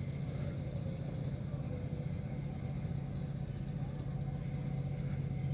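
Steady low hum of a running motor, with a thin high whine that drops out and comes back a few times.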